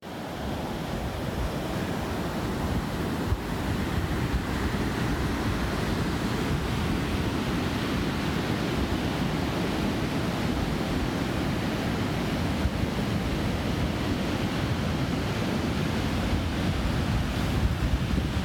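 Sea waves breaking and washing on the shore in a steady rush, with wind buffeting the microphone.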